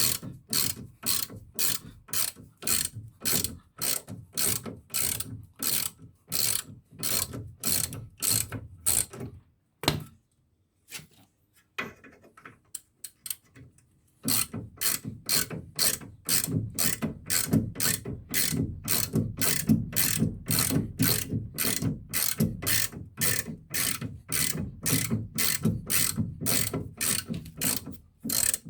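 Hand ratchet wrench clicking in quick even strokes, about two a second, while undoing the ball-joint bolts. About ten seconds in it stops with a single knock, is quiet for a few seconds, then carries on.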